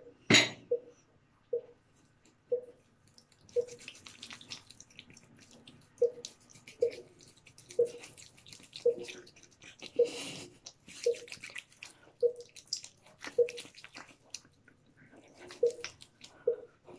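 Wet squishing of hands massaging a foaming gel cleanser over the face, with a soft pitched plop about once a second. A sharp click sounds right at the start.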